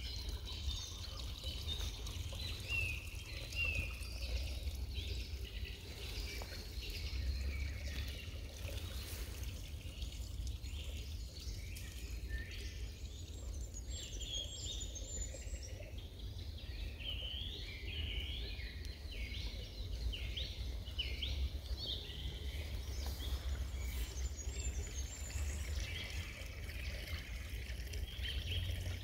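Songbirds calling and singing in a forest: many short chirps and quick whistled phrases, busiest in the middle stretch, over a steady low rumble.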